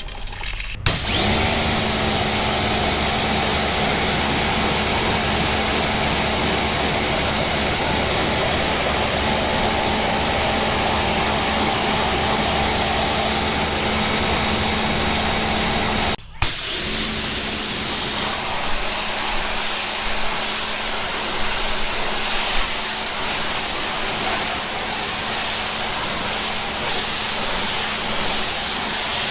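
Tooluck KPR-7.3B 1800 W electric pressure washer starting up about a second in and running steadily, a motor hum under the hiss of water spraying, run to purge the air from the pump and hose. It cuts out for a moment about halfway through and starts again.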